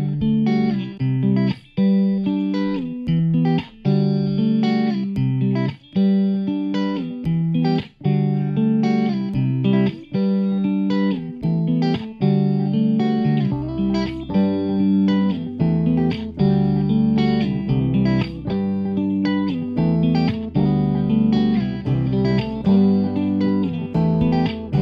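Instrumental background music with a plucked-string melody over chords, played in steady regular notes; a low bass part comes in about halfway through.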